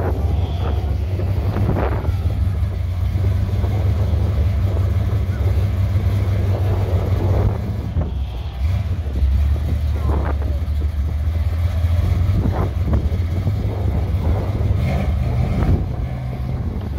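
Classic mid-1950s Chevrolet engine rumbling at low speed as the car rolls slowly past, with wind on the microphone.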